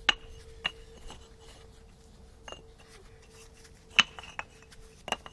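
Clay brick pavers clinking against one another as they are picked from a pile and set into sand: a handful of sharp clinks with a short ring, the loudest about four seconds in.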